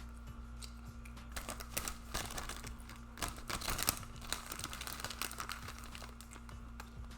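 Food packaging crinkling and crackling, a dense run of rustling from about a second in to near the end, loudest in the middle, over a faint steady hum.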